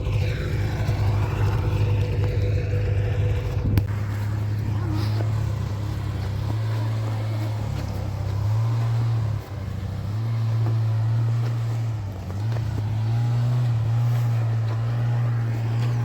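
Small vehicle engine running steadily while under way, its pitch shifting with the throttle and dropping sharply twice, about halfway through and again a few seconds later.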